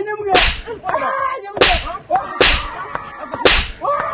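Four sharp, loud cracks, about a second apart, each dying away within half a second.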